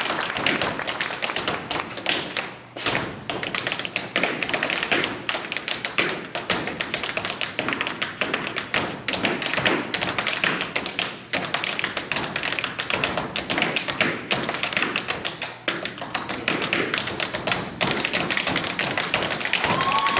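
Two dancers' tap shoes striking a wooden stage floor in fast, dense rhythms, with no music behind them. There is one brief lull about two and a half seconds in.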